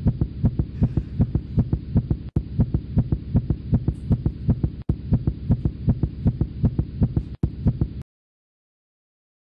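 Toad calling: a low pulsed croak repeating evenly about four times a second, stopping about eight seconds in.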